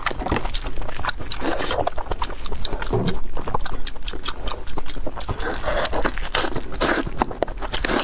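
Close-miked eating of braised beef ribs: chewing, biting and tearing the meat, with many small wet mouth clicks and smacks.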